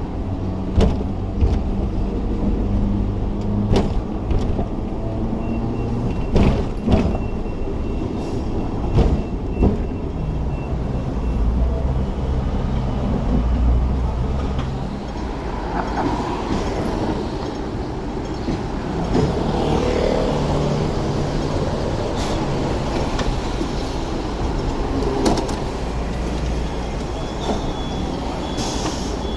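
Hong Kong double-decker electric tram running on street track, heard from on board: a steady low rumble and motor hum, with sharp knocks and rattles every few seconds.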